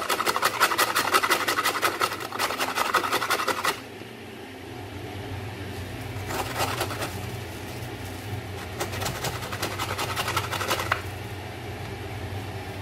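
Fresh turmeric root grated on a metal hand grater: fast, even rasping strokes for the first few seconds, which stop short, then two quieter, shorter bursts of grating later on.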